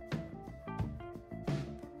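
Background instrumental music with a steady drum beat, about one hit every 0.7 seconds, under sustained melodic notes.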